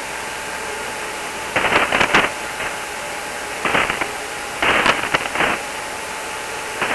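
Shortwave band noise from a software-defined radio receiver tuned to 3.895 MHz in the 75-metre amateur band between transmissions. It is a steady hiss, strongest below about 3 kHz where the sideband filter cuts it off, with three short bursts of noise about one and a half, three and a half and four and a half seconds in.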